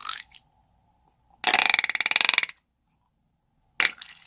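Air squeezed out of a rubber snake balloon through its tip into white glue, making rapid buzzing sputters: a short one at the start, a loud one lasting about a second in the middle, and a brief sharp one near the end.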